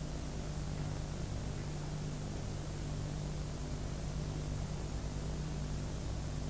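Steady low electrical hum with a hiss over it: the background noise of the recording and microphone system, with nothing else happening.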